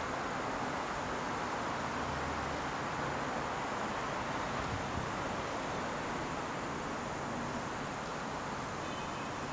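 Steady outdoor background noise, an even hiss with no distinct event.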